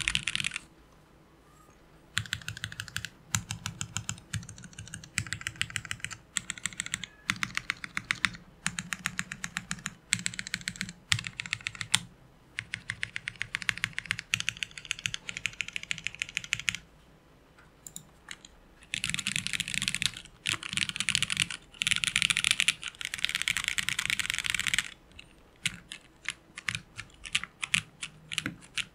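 Typing sound test on a custom acrylic Alice-layout gasket-mount mechanical keyboard with Jwick Yellow linear switches. Fast runs of keystrokes are broken by short pauses, slowing to separate key presses near the end.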